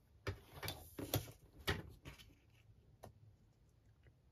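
Patterned craft paper being cut along a pencilled diagonal line: a series of about six short, faint clicks and scrapes in the first three seconds, then quiet.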